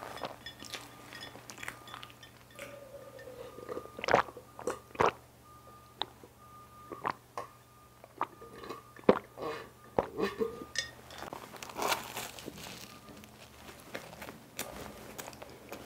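Close-miked eating sounds: wet chewing and mouth clicks, swallows of milk about halfway through, then crunchy bites into a crusty cream-filled pandoro bread near the end.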